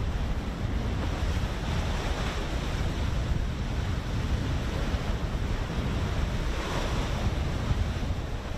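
Wind buffeting the microphone at open sea, a steady low rumble, with the wash of waves swelling now and then.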